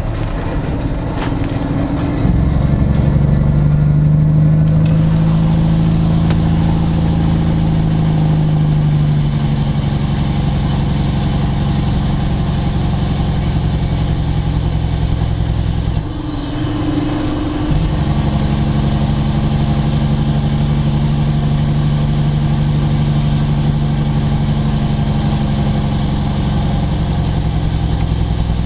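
Loaded Kenworth logging truck's diesel engine pulling steadily under heavy load. The engine note breaks off briefly about two-thirds of the way through and then picks up again.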